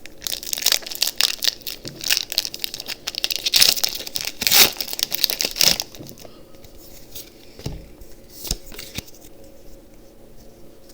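Foil booster pack wrapper of Pokémon trading cards crinkling and tearing open, a dense crackling for about six seconds, then quieter rustling with a couple of light clicks as the pack is handled.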